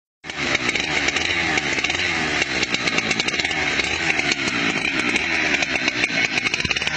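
Chainsaw running steadily, cutting in a fraction of a second in, with a dense rapid crackle over its whine.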